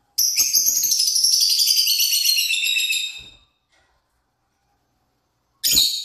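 Caged pet parrot giving a loud, shrill burst of rapid chattering calls for about three seconds, then a second short shrill call near the end.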